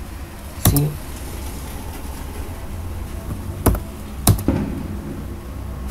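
Computer keyboard keystrokes: a few sharp clicks, two of them about half a second apart, over a steady low background rumble.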